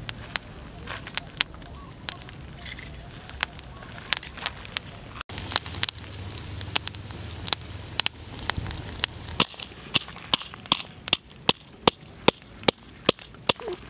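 Charcoal fire crackling with scattered sharp pops, then, in the last few seconds, a pestle pounding garlic, red chillies and salt in a coconut-shell mortar: steady knocks about two or three a second.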